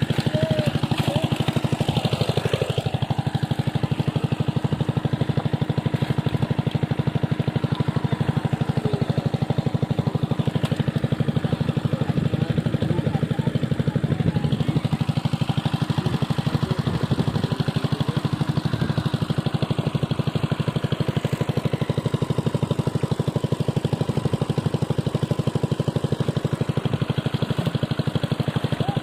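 A small engine running steadily at a constant speed, with a fast, even beat.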